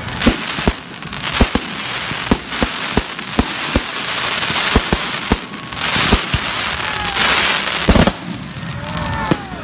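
Fireworks bursting overhead: a dozen or more sharp bangs at uneven spacing over a steady hiss of burning stars. The hiss swells about six seconds in, and the loudest bang comes near the end.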